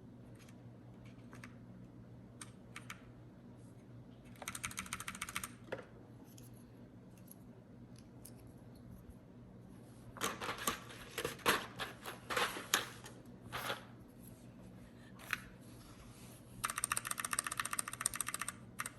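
Typing on a Glorious GMMK TKL mechanical keyboard with Gateron brown switches: a quick run of rapid keystrokes, a few seconds of louder, irregular key strikes, then another quick run near the end.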